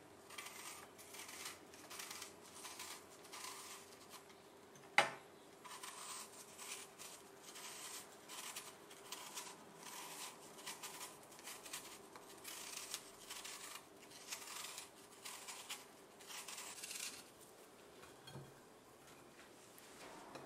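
Small kitchen knife paring the skin off apples: a run of soft, irregular scraping cuts as the blade works round the fruit, with one sharp click about five seconds in.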